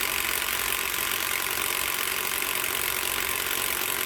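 Bosch GDS 250-LI cordless impact wrench hammering steadily on a lug nut without breaking it loose: the nut is beyond the tool's rated torque and size range.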